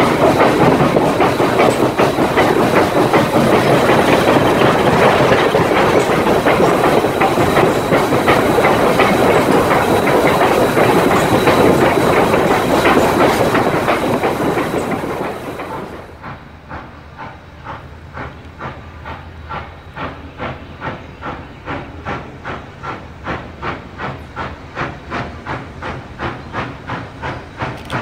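Southern Railway 2-8-0 consolidation #630 steam locomotive. First, heard from aboard the moving train, a loud steady rush of steam hiss and wheels on the rails. About halfway through this gives way to the locomotive's exhaust chuffing from down the line, about two beats a second, much quieter.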